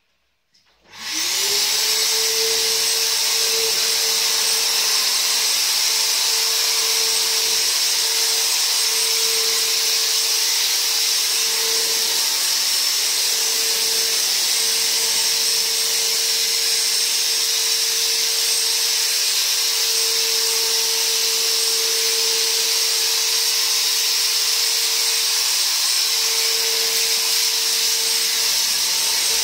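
Electric handheld cold fogger switched on about a second in, its motor spinning up within a second to a steady whine with the hiss of insecticide mist, running on without a break.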